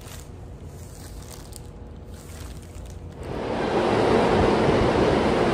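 New York subway train running through the station, a loud steady rumble that swells up about three seconds in. Before it there is only low handling noise.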